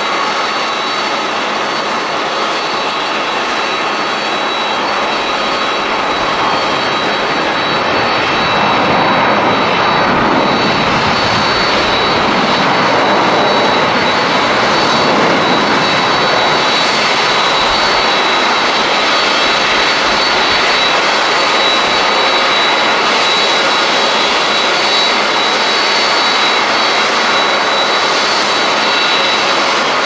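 Boeing 767 jet airliner's engines on its landing rollout, a steady rushing noise with a high whine; the engine noise swells about eight seconds in, as reverse thrust is applied to slow the plane on the runway.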